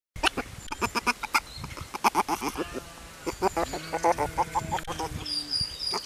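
Baby river otter making rapid strings of short squeaking, chirping calls: contented, happy noises.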